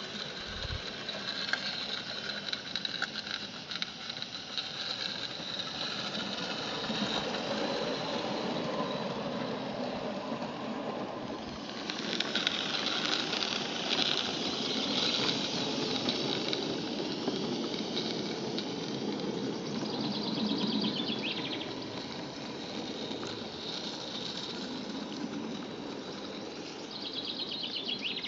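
Roundhouse Darjeeling Garratt live-steam garden-railway locomotive running with its train: a fast, soft exhaust beat over steady steam hiss. It grows louder about twelve seconds in as the engine passes close by.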